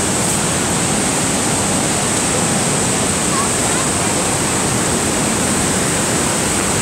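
Steady rush of Niagara Falls and its churning river, an even, unbroken noise of falling and rushing water.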